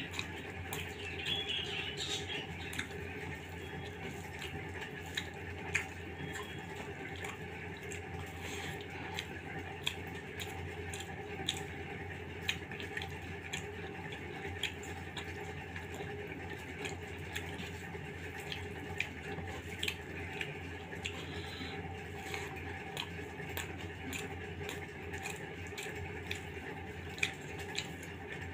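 A person eating bhuna khichuri with his hand: frequent short wet clicks of chewing and lip-smacking, over a steady low hum.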